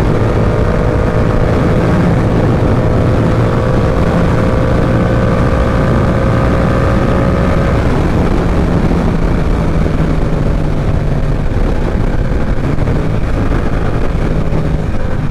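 Heavy wind rushing over a helmet-mounted microphone on a moving motorcycle, with the Yamaha R7's parallel-twin engine running underneath. The engine tone rises slightly in pitch for the first half, then fades into the wind.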